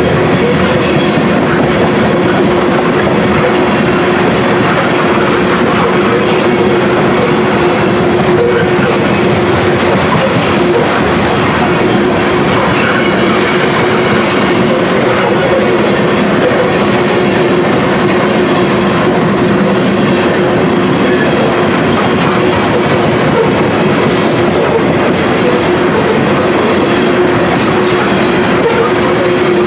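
Freight train of covered hopper cars rolling past close by: a steady rumble of steel wheels on rail with clickety-clack over the rail joints and a steady low drone under it.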